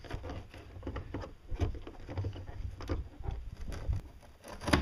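Tin snips cutting through the fiberglass skin of a boat pontoon to open a hatch hole: a string of irregular crunching snips, with a louder snap near the end.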